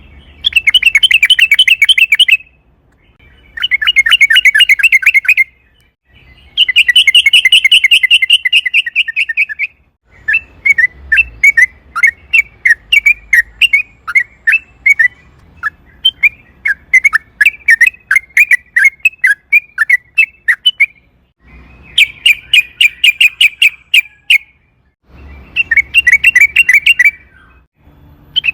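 Yellow-vented bulbul singing: loud bursts of rapid, bubbling notes, each about two seconds long, repeated with short pauses. In the middle there is a longer run of separate chirps.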